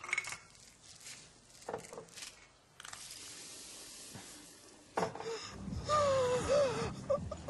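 Faint clinks of lab glassware as liquids are poured into a flask, then a steady hiss from the mixture for about two seconds. About five seconds in, a louder passage begins, with a low drone and a wavering pitched sound.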